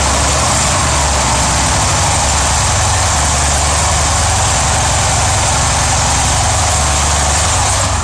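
Engine idling steadily: a constant low rumble under an even hiss.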